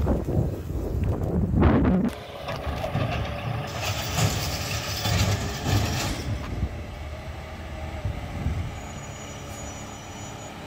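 Peterbilt 520 McNeilus ZR garbage truck running with a steady engine hum, with a loud hiss of air lasting about two and a half seconds from around four seconds in. Wind rumbles on the microphone for the first two seconds.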